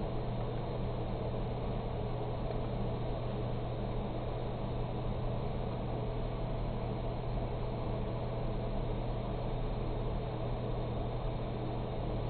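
Steady machine hum of a running computer: an even low drone with a fan hiss over it.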